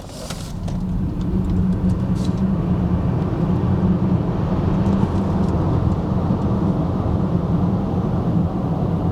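Cabin noise of a Mercedes EQS 580 4Matic electric car launching at full power from a standstill: the sound builds over about the first second, then holds as a steady low rumble.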